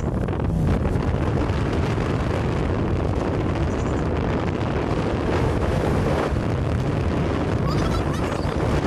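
Steady wind buffeting on the microphone mixed with engine and road noise from a moving vehicle, heaviest in the low end and unbroken throughout.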